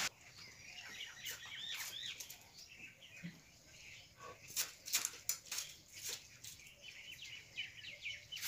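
Small birds chirping faintly, with crisp short cutting strokes as a cabbage is shredded against a bonti, a fixed curved blade; the strokes come thickest about four to five seconds in.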